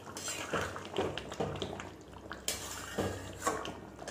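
Flat metal spatula stirring a thick chicken curry in a large metal kadai, scraping and knocking against the pan in about half a dozen irregular strokes as garam masala is mixed in.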